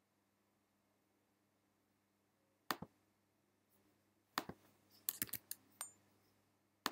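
Quiet room tone, then a few sharp clicks from a computer being operated, starting almost three seconds in. Some come in quick pairs, with a rapid run of them around five seconds in.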